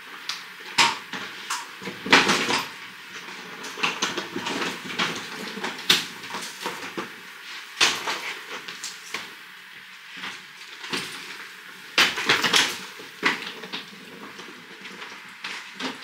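Rolling suitcases and bags being moved and set down on a wooden floor: irregular knocks, bumps and clatter, loudest about two seconds in and again around twelve seconds in.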